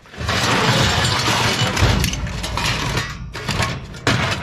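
Scrap metal parts from a golf cart charger clattering and crashing together for about three seconds, then a single sharp knock near the end.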